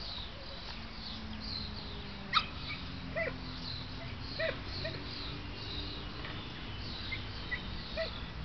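German Shepherd Dog giving a handful of short, widely spaced barks at a helper during protection work, with a sharp, brief sound about two seconds in the loudest of them. Small birds chirp throughout.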